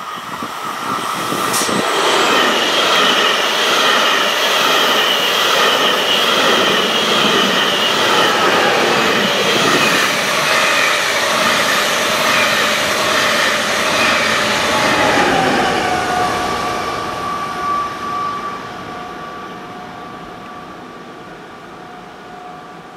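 ÖBB Railjet passenger train passing close by at speed: a loud rush of wheel and air noise as the carriages go by, fading after about 15 seconds and leaving a faint steady whine.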